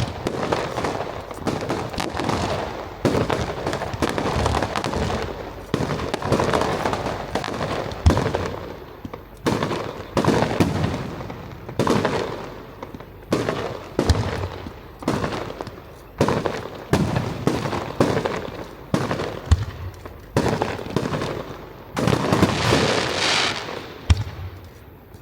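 Aerial fireworks shells bursting one after another, about one every second or so, each bang followed by a long rolling echo and crackle, with a dense barrage of overlapping bursts near the end.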